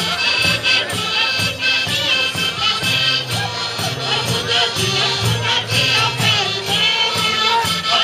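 Traditional folk music with group singing over a steady percussion beat of about two to three strikes a second.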